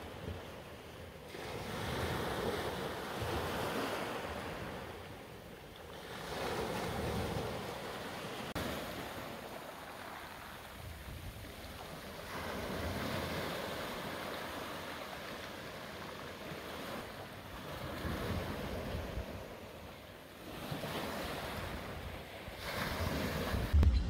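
Atlantic Ocean surf breaking and washing up a stony shore, swelling and falling back every few seconds.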